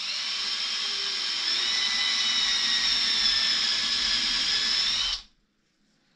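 Cordless drill spinning a small two-flute milling cutter at speed, a steady high whine as it shaves out a flaw in soft, partly cured epoxy resin; it stops abruptly about five seconds in.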